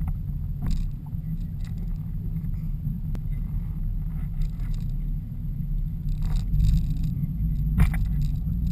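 Four Winns motorboat's engine idling with a low steady rumble, with a few knocks and rubs from handling close to the camera, the loudest about eight seconds in.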